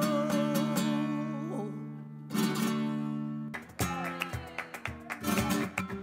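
A female flamenco singer holds a long note with vibrato over a steady low accompaniment; the note ends about a second and a half in. The flamenco guitar then takes over with ringing chords, and in the second half it turns to fast strumming with sharp percussive strokes.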